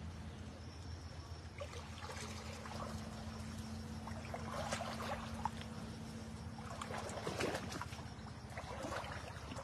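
Shallow stream water splashing and sloshing in irregular bursts as a person wades through it in rubber boots, with a steady low hum underneath.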